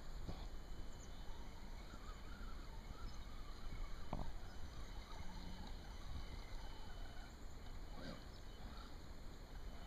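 Traxxas Summit RC truck churning through shallow creek water, its wheels splashing and its electric motor faintly whining, with a low rumble throughout.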